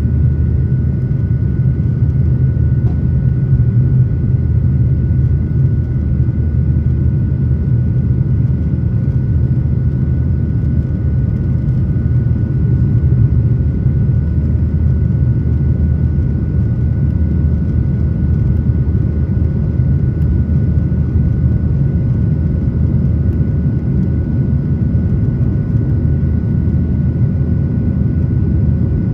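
Airliner cabin noise during the climb after takeoff: a steady, loud low rumble of engines and airflow, with a faint steady high whine.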